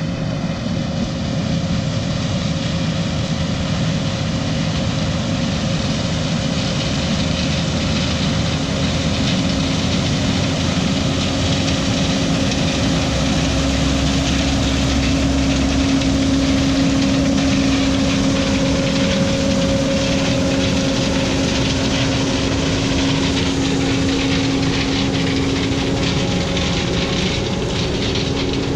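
Large farm machine's engine running steadily with a loud, even hum and a held tone that grows stronger about a third of the way through.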